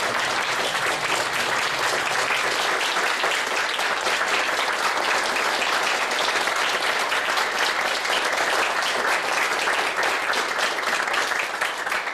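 Audience applauding steadily, many hands clapping at once; the applause fades out at the very end.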